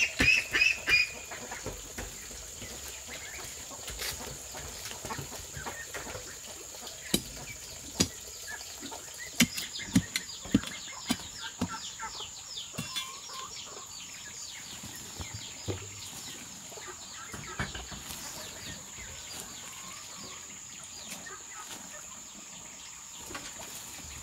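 A hoe chopping and scraping into dry earth, with dull strikes at irregular intervals. Chickens cluck, loudest in a quick run of calls right at the start. A steady high-pitched drone sits underneath.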